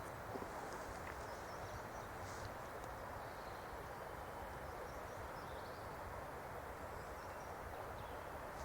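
Small birds chirping faintly now and then over a steady outdoor background hiss.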